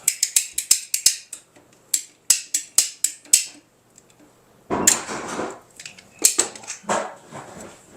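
Quick, sharp scraping clicks of a hand tool trimming a sliver of burr off a freshly sawn pipe end, several strokes a second for about three seconds. After a short pause come a few louder, rougher scrapes and clatters.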